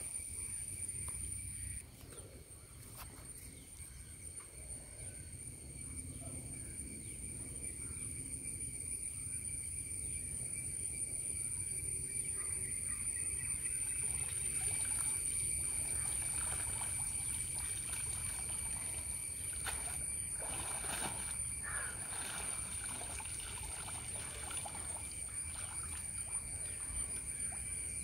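Cast net being hauled in by hand from the water, with water sloshing and trickling off the mesh. A steady high-pitched insect drone runs underneath.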